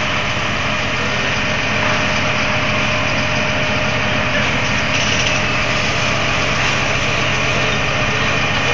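Fire truck engine running steadily, a constant, even hum.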